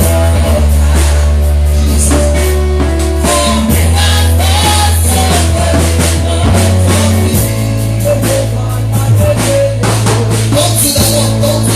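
Live gospel worship music: band with bass and drum kit and singing voices, the bass holding long notes that change every few seconds.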